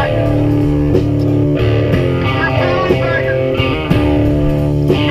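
Live band playing: electric guitar holding and changing chords over a drum kit, with a few sharp drum hits.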